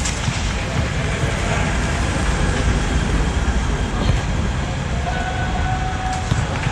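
Steady low rumbling noise of an air-supported sports dome, with a few faint knocks and a faint thin tone about five seconds in.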